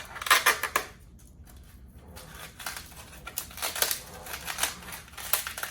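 Dry, brittle loofah gourd skin being cracked and peeled open by hand, giving irregular crackling and snapping. A cluster of sharp snaps comes just under a second in, and a looser run of crackles starts about halfway through.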